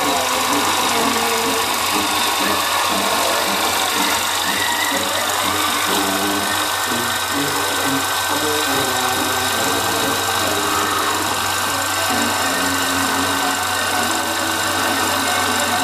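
Specto 9.5mm cine projector running with a steady mechanical whirr, while music plays through its valve sound amplifier's speaker over a low steady hum.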